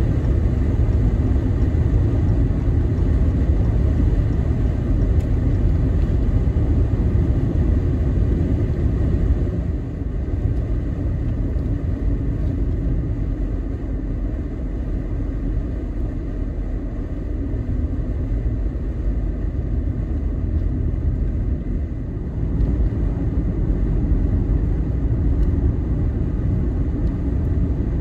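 Vehicle driving on a snow-covered road: a steady low rumble of tyres and engine, a little quieter through the middle stretch.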